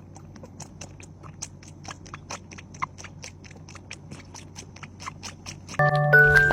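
A cat chewing, rapid rhythmic crunches at about five a second. Music starts near the end.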